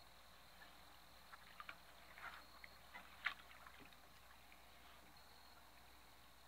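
Near silence, broken by a handful of faint, sharp clicks in the middle, the loudest a little past three seconds in.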